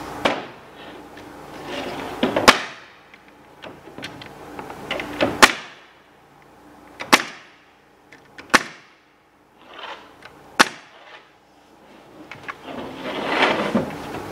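Pneumatic nail gun firing nails through plywood roof sheathing into the trusses: about six sharp single shots, one every one to three seconds.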